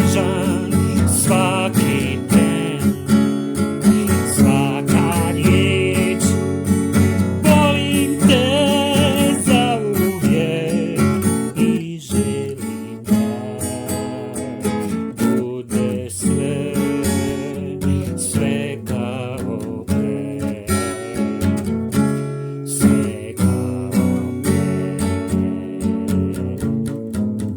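Music led by a strummed acoustic guitar, with a wavering melody line over the top for roughly the first ten seconds.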